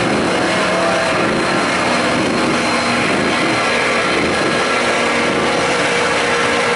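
Duramax diesel engine of a mega mud truck on tractor tires running steadily as the truck creeps slowly through deep mud.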